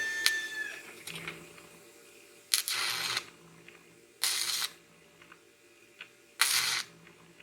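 Stick-welding arc from a YesWelder 205A with a 1/16 rod, crackling in three short half-second bursts, each cutting off as the arc goes out. It is typical of an arc that won't hold; the welder puts this down to not pushing the rod down as it burned.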